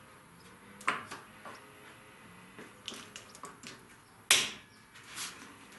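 A few scattered clicks and knocks of a metal hold-down clamp being adjusted and tightened onto a plywood jig on a table saw top, the loudest a sharp knock about four seconds in.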